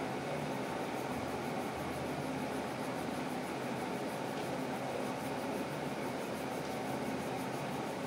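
Steady, even rushing hum of an electric fan running in the room.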